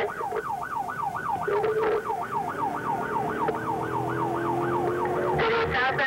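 Police car siren on a fast yelp, rising and falling about four times a second, until it breaks off into a different pattern near the end.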